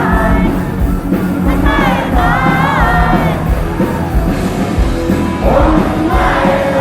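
Live rock band playing with a sung vocal line, and the crowd shouting and singing along, swelling near the end.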